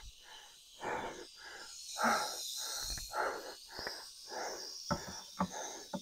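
A man panting hard close to the microphone, quick breaths in and out about twice a second, out of breath from climbing a hill. A couple of sharp clicks come near the end.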